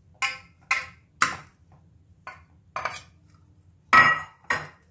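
Stainless steel kitchenware clanking: a steel bowl and a steel potato masher knocking against a stainless steel mixing bowl as cooked rice is tipped in and mashed into potato. About seven separate knocks, the loudest near the end, ringing briefly.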